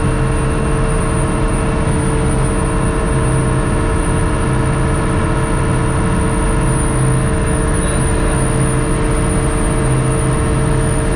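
Ship's engine-room machinery running with a steady, loud drone, a constant hum and several steady tones, unchanging throughout.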